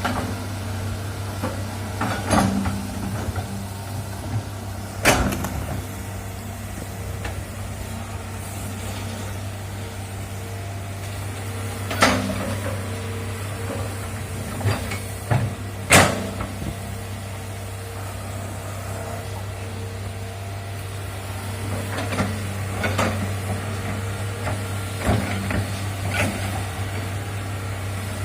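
Hydraulic excavator digging a trench: its diesel engine runs steadily, with sharp clanks and knocks from the bucket and boom every few seconds.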